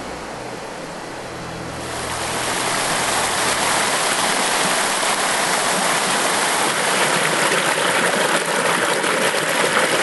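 Waterfall: white water pouring over rock, a steady rushing hiss. It comes in loud about two seconds in, after a quieter start.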